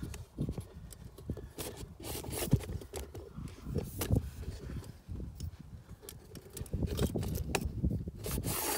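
Close handling noise: irregular small clicks, knocks and rustles as a handheld phone camera and hands move about the tractor's pump housing, with one sharper click about two and a half seconds in.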